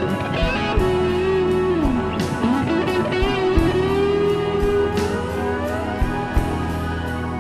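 Background music: a guitar melody with long pitch bends and slides over a steady backing, with regular drum strikes.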